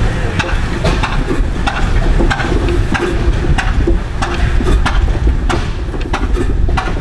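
Antique horizontal steam engine running on compressed air instead of steam, giving a short puff of exhaust about every two-thirds of a second over a steady low rumble.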